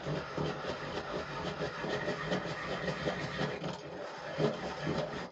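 Electric pencil sharpener motor running under load, grinding the end of a thick carbon-fibre arrow shaft with a rattly, vibrating grind. It cuts off suddenly at the end.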